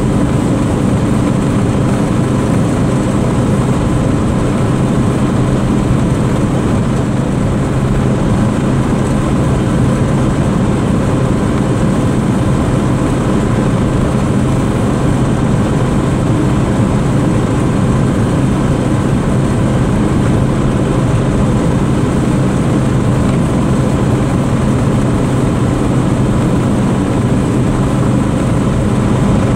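1979 Dodge D300 pickup's 360 V8 with a four-barrel carburettor, heard from inside the cab. It drones steadily at a constant cruise, with road and wind noise.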